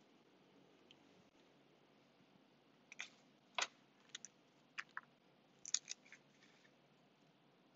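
Faint scattered clicks and light knocks from a leather travel organizer being handled and turned over, about eight small sharp sounds in the middle of an otherwise near-silent stretch.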